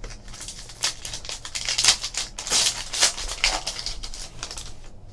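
Foil wrapper of a trading card pack being torn open and crinkled, a run of crackles from about a second in that eases off toward the end as the cards are slid out.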